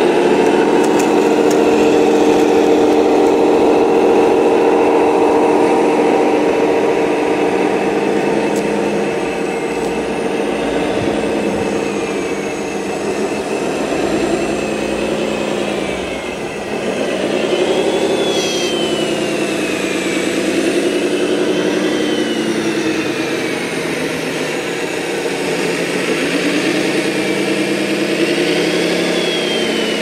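Radio-controlled model construction vehicles, a wheel loader and a tipper truck, running with an engine-like sound that holds steady for the first several seconds and then rises and falls in pitch again and again as they work. From about the middle on, a thin high whine glides up and down along with it.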